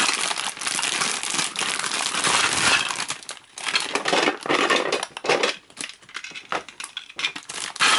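Plastic LEGO Duplo bricks clattering and rustling as hands rummage through them, a dense run of small clicks that turns sparser and more broken in the second half.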